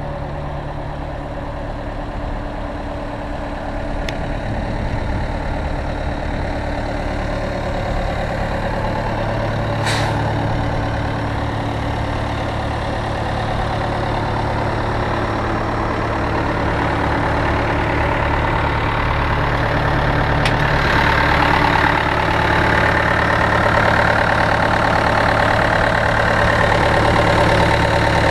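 Cat 236B3 skid steer's diesel engine idling steadily, slowly growing louder, with a sharp click about ten seconds in and a higher-pitched whine joining the engine sound about two-thirds of the way through.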